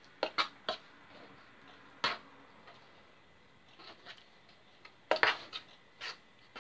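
A fork scraping and tapping against a metal loaf tin as cake batter is spread level: a few sharp clicks in the first second, one about two seconds in, and a quick cluster around five seconds in.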